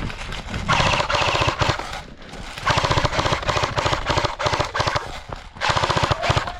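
Airsoft electric gun firing full-auto in three rapid bursts. Each burst is a fast rattle of shots over the whine of the gearbox motor.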